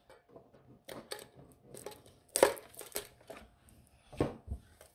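Metal Pokémon card mini tins being handled on a table: a string of short clicks and knocks, the loudest about two and a half seconds in.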